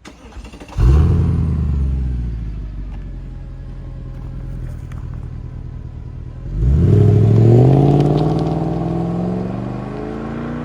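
Mercedes-Benz CLK63 AMG's naturally aspirated 6.2-litre V8 cranked by the starter, catching under a second in with a loud flare of revs and settling to idle. About six and a half seconds in it is revved sharply, then the revs slowly fall back toward idle.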